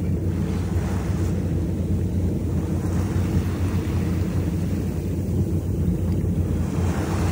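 Wind buffeting the microphone and choppy sea waves slapping against a boat's hull, over a steady low hum.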